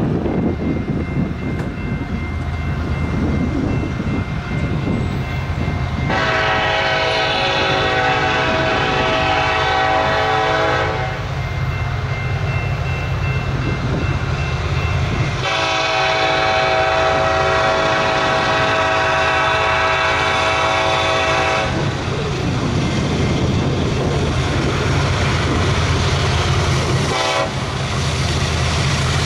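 Railroad crossing bell ringing as the crossing gates come down, while the approaching BNSF freight's lead locomotive sounds its air horn for the crossing: two long blasts about five and six seconds long, then a brief toot near the end, over a low steady rumble from the approaching train.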